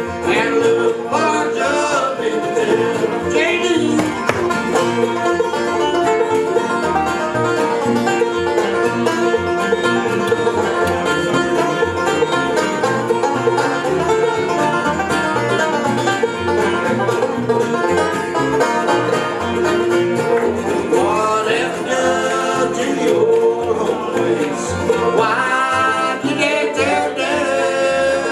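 Live acoustic bluegrass band playing: a banjo break over mandolin, guitar, fiddle and upright bass. Voices singing in harmony come back in during the last several seconds.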